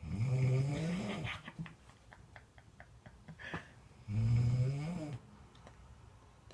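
Loud snoring: two long, pitched snores about four seconds apart, each rising slightly in pitch. Between them comes a run of quick clicking rattles, about four a second, and a short snort.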